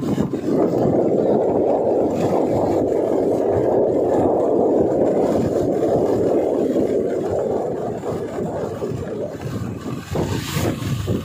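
Steady wind rushing over the microphone of a camera moving along a road, easing off a little near the end.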